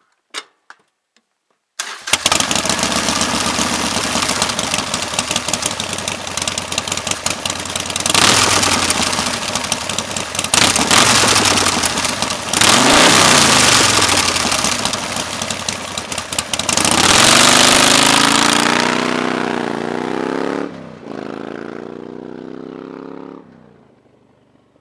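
Harley-Davidson Nightster 1200's 1200 cc air-cooled V-twin: a few clicks, then the engine starts about two seconds in and runs, revved several times. Near the end it pulls away, the pitch climbing, dipping at a gear change and climbing again, then fading out.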